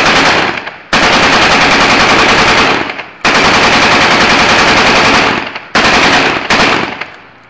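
Automatic gunfire in rapid bursts: a short burst, then two long continuous bursts of about two seconds each, then two shorter bursts, each trailing off into echo.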